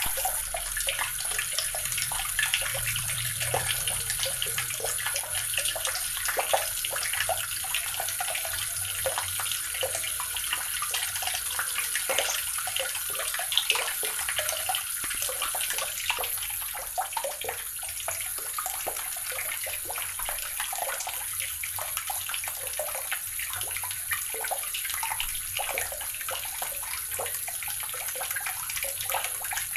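Water running steadily from a tap, splashing into a basin or tub below.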